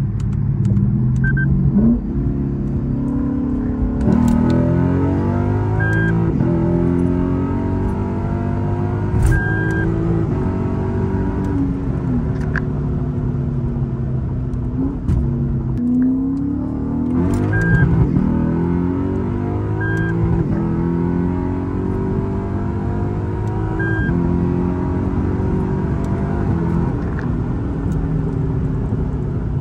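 2010 Lexus IS F's 5.0-litre V8, breathing through an aftermarket cat-back exhaust, pulling hard under acceleration, its pitch climbing and dropping several times.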